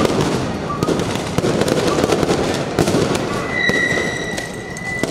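Firecrackers and fireworks popping and cracking in quick irregular succession over a dense street din. About three and a half seconds in, a steady shrill whistle tone joins and holds to the end.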